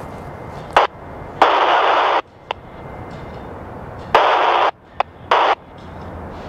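Railroad radio scanner giving bursts of static hiss with no voice: a brief crackle, a longer burst about a second and a half in, then a few more short bursts past the four-second mark, over a steady low background noise.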